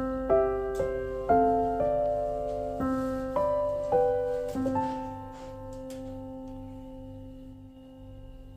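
Background piano music: a slow melody of single struck notes over a sustained low note, ending on a long held note that fades.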